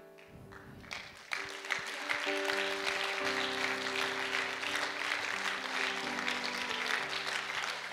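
Congregation applauding, starting about a second in, over soft background music of sustained chords that change every second or two.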